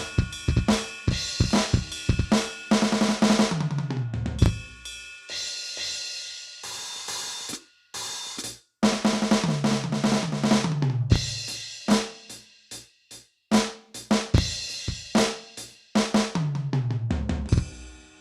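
Aroma TDX-16S electronic drum kit's sound module playing a drum beat of kick, snare, hi-hat and cymbals. Three tom fills step down in pitch, near the start, the middle and the end, and the beat stops briefly twice.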